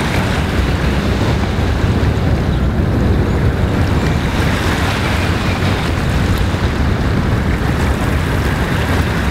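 Steady wind buffeting the microphone: a loud, fluttering low rumble under an even hiss.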